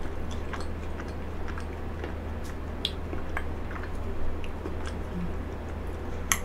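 Close-miked chewing of frozen cheesecake: soft, irregular wet mouth clicks, with a sharper click near the end, over a steady low hum.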